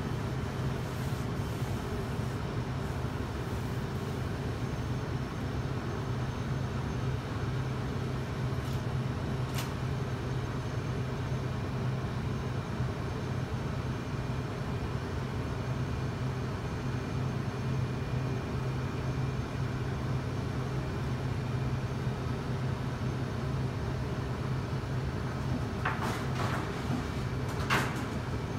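Gas-fired deck oven running with its burner lit: a steady hum and rush. A few light clicks near the end.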